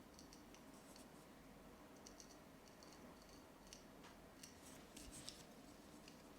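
Barber's scissors snipping hair, faint quick runs of short, crisp clicks with pauses between them and a louder run about five seconds in.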